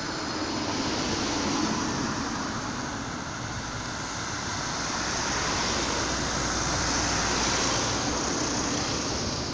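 Passenger train approaching slowly with its cab car leading: a steady rumble and hiss of wheels and running gear that swells a little as it nears.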